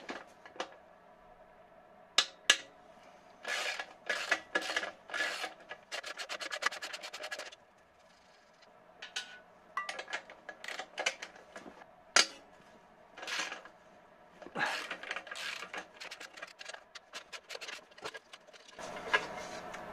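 Socket ratchet working the rusted nuts on a turbocharger's exhaust outlet flange: short bursts of ratchet clicking and metal scraping, with a quick run of even clicks about six seconds in, among sharp metallic knocks of the socket on the fittings.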